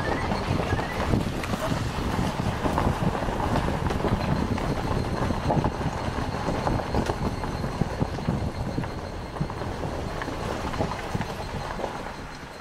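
Continuous rumbling, crunching noise with many small irregular knocks as the camera travels along, easing off somewhat near the end.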